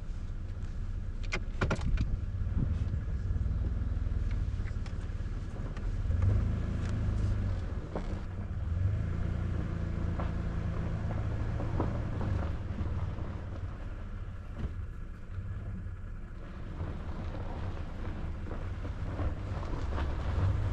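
Car driving slowly, a steady low engine and road rumble with a few sharp clicks and knocks, the loudest just under two seconds in.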